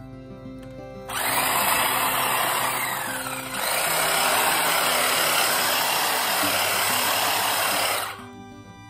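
Corded electric hedge trimmer running as it cuts through a hedge. It starts about a second in, dips briefly midway and stops near the end, with background music underneath.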